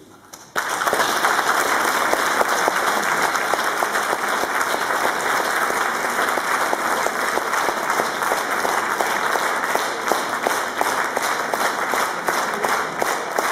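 Audience applauding, breaking out suddenly about half a second in and going on steadily, the clapping falling into a more even rhythm near the end.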